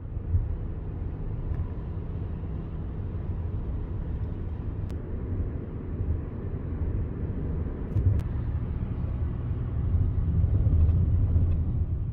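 Steady road and wind rumble heard from inside the cabin of a Hyundai Santa Fe cruising at highway speed, swelling a little louder near the end.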